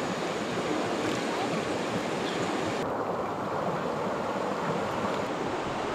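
Shallow rocky river rushing over stones and small rapids, a steady, even rush of water.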